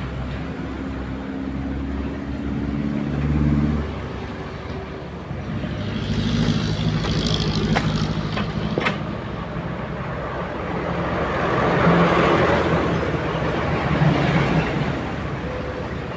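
Excavator's diesel engine running steadily, with two sharp clanks about eight and nine seconds in and a longer rushing noise near the end.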